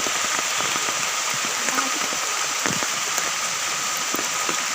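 Steady rain falling, with scattered close drop hits.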